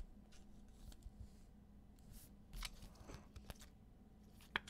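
Faint rustling and light clicks of trading cards being handled and slid from hand to hand, with one sharper click near the end.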